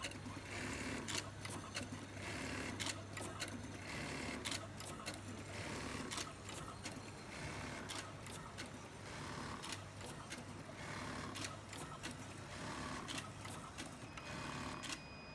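FOXSEW FX-378-1903 automatic button-feeding button sewing machine attaching buttons in repeating cycles: a short burst of high-speed stitching about every second and a half, with sharp clicks between bursts and a low hum underneath.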